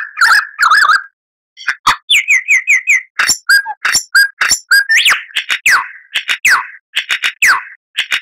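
Lyrebird singing a varied, fast run of phrases: warbled notes, a brief pause, then repeated wavering notes, sharp clicks and a series of downward-sweeping whistles.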